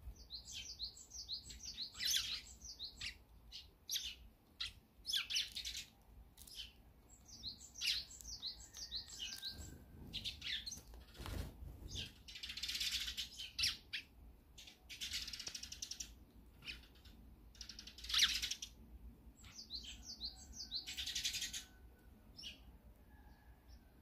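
Eurasian tree sparrows chirping and chattering at a seed feeder: quick runs of short high chirps several times over, mixed with harsher, denser chatter. A brief low flutter, likely wings, comes about halfway.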